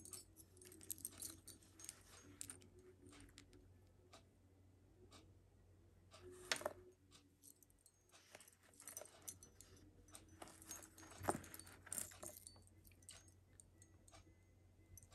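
Faint, scattered small clicks and light metallic rattling of jewelry being handled, with a few sharper clicks about six seconds in and again around eleven seconds.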